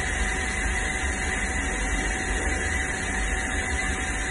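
Steady machine noise: an even hiss over a low hum, with faint steady high tones, unchanging throughout.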